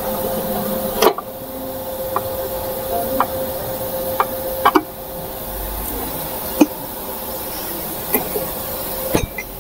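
Sharp metal knocks and clinks as the rear cover of a Mahindra Scorpio chain-type transfer case is set onto its aluminium housing, the loudest about a second in. A steady hiss and a faint hum run underneath.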